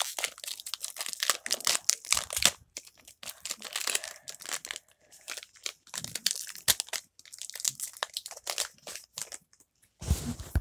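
Foil Pokémon booster pack being torn open and handled, a dense, irregular crinkling crackle that comes in spurts with short gaps. Near the end there is a louder, dull thump.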